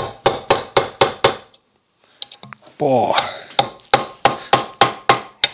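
A hammer striking metal about three to four times a second, in two runs with a short pause between. It is knocking at a rusted bedknife screw on a Toro Greensmaster 3250-D reel mower that will not come loose.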